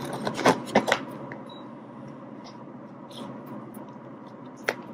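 Close hand-handling noise of waxed sail twine being wrapped onto three-strand rope: a quick cluster of clicks and rubbing in the first second, low handling sounds after, and one sharp click near the end.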